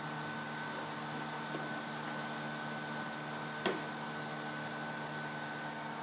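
Steady whirring hum of running electrical equipment with a high whine, and one sharp click a little past halfway as a cable connector is pushed into an Xbox motherboard.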